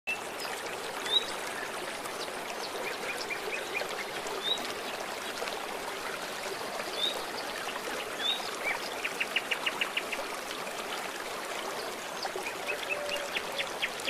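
Shallow river flowing steadily over a stony bed, a continuous rushing babble. Small birds chirp above it now and then, including a quick run of about ten notes around nine seconds in and another short series near the end.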